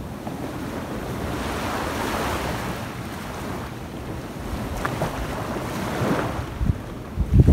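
Small waves washing up onto a sandy beach and drawing back, in a steady hiss of surf that swells about two seconds in. Wind buffets the microphone with low rumbles toward the end.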